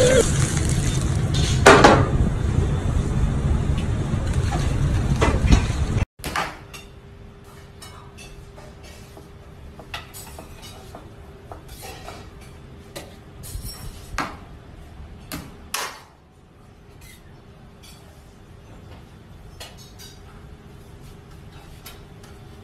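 For about the first six seconds a loud, dense sound carries on, then cuts off suddenly. After that, a large chef's knife slicing raw beef on a plastic cutting board gives scattered taps and clicks over a steady faint hum.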